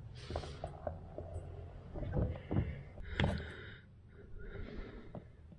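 Scattered clicks, knocks and rustling as the hydraulic pilot filter bowl of a Kubota KX080 excavator is unscrewed by hand over a rag, with a faint low hum underneath.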